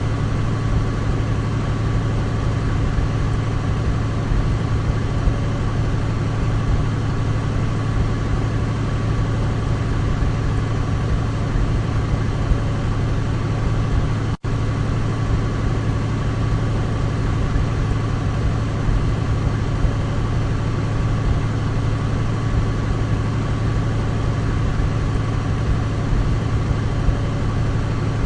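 Douglas DC-3 piston aircraft engines running at a steady drone, with a strong low hum and a faint steady whine above it. The sound breaks off for a split second about halfway through, then carries on unchanged.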